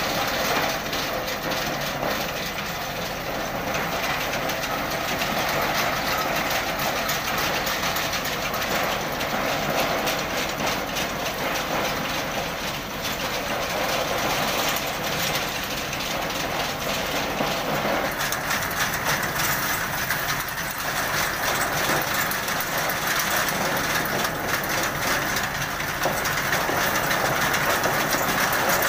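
Tractor engine running steadily while the tractor-driven garlic harvesting machine it powers clatters continuously; the sound grows brighter about two-thirds of the way through.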